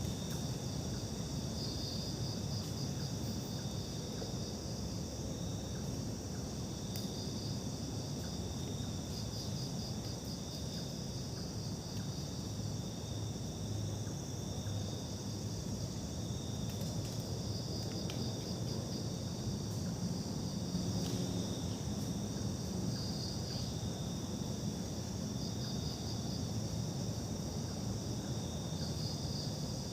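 Crickets and other insects calling, a steady high chorus with pulsing trills that come and go every few seconds, over a low rumble.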